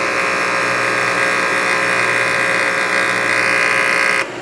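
Electric spot-cleaning gun spraying cleaning fluid onto an ink misprint on a shirt: a loud, steady buzz that cuts off suddenly near the end, leaving a lower hum underneath.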